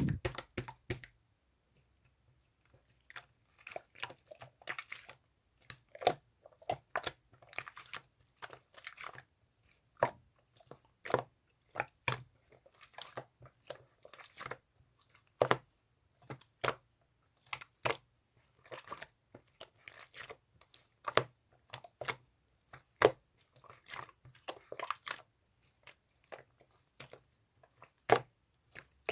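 Irregular close-up crunching and sharp clicking sounds, coming in clusters every second or so.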